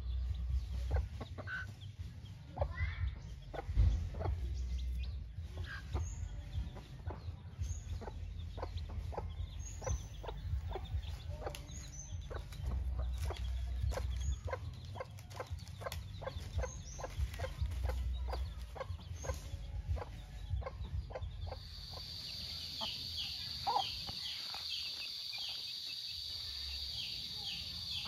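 A gamefowl hen clucking in short, repeated calls to her chicks, with a low rumble underneath. About three-quarters through, a steady high-pitched buzz starts, with short falling chirps under it.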